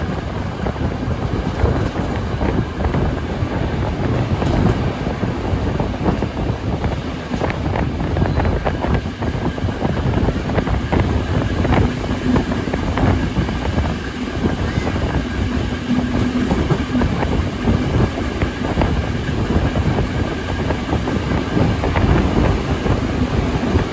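Steam-hauled passenger train running, heard from an open carriage window: a steady rolling noise with many irregular clicks and clacks of the wheels on the track.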